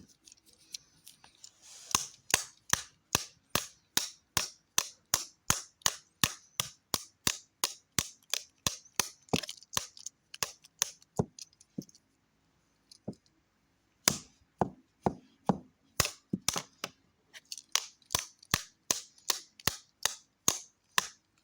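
A malfunctioning TV remote being whacked over and over against a hard surface to make it work: sharp knocks about three a second, stopping for about two seconds near the middle, then starting again.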